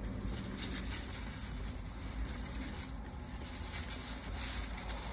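Steady low rumble and hiss of a car cabin, with faint rustling and handling noises about a second in and again near the end.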